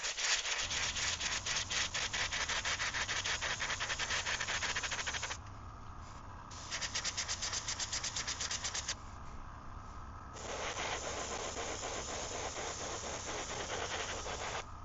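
Airbrush spraying paint: a fluttering hiss in bursts, stopping about five seconds in, briefly again around seven seconds, then a smoother spray from about ten seconds until just before the end.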